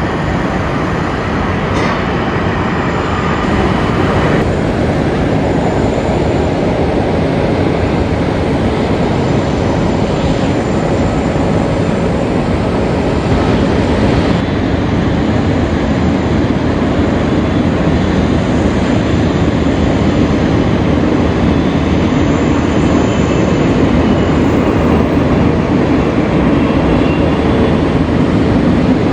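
Jet airliner engines making a continuous, loud, broad noise. About fourteen seconds in the sound changes abruptly as a Boeing 777-300ER departure gives way to an Airbus A330-300 arrival.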